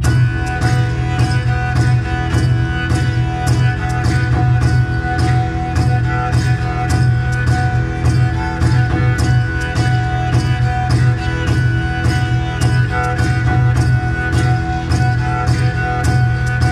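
Self-made jouhikko (bowed lyre) played with a bow: a melody over a steady, sustained low drone on the open strings. A steady percussive beat of regular knocks runs under it.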